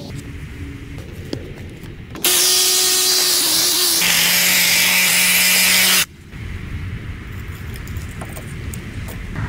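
Power drill running with a bit in a hole in brick, enlarging the hole for the faucet, for about four seconds. Its pitch steps down about halfway through, and it stops suddenly. Quieter handling noise with a few clicks comes before and after it.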